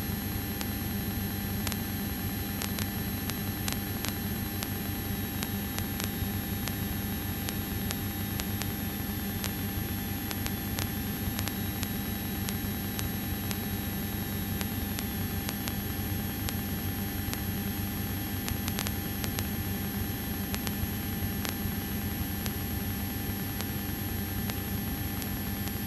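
Light single-engine aircraft's piston engine and propeller droning steadily, heard from the cockpit, under a steady hiss with scattered faint clicks.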